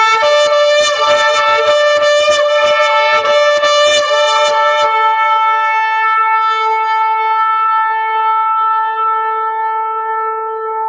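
A long, loud trumpet-like horn blast held on one steady pitch. For the first five seconds it is rough and crackling, with a second, higher note sounding alongside. It then settles into a clean held tone that slowly fades near the end.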